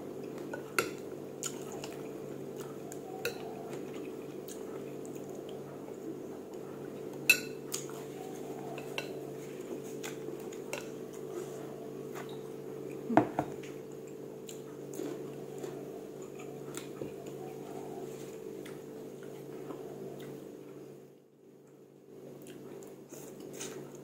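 Metal spoon and chopsticks clinking and knocking against a ceramic noodle bowl during eating: scattered sharp clicks, with two louder knocks about 7 and 13 seconds in. A steady low hum runs underneath and drops away about 21 seconds in.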